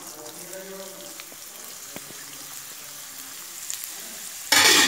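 Carrot sticks frying in hot oil, a steady sizzle that starts as they hit the oil. Near the end comes a loud burst of noise about half a second long.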